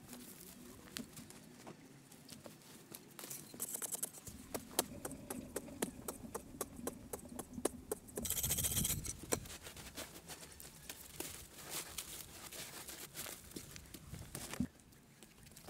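Digging by hand in dry sandy soil: many light scrapes, scuffs and knocks as earth is scooped and chopped, with a louder rasping stretch about a second long a little past the middle.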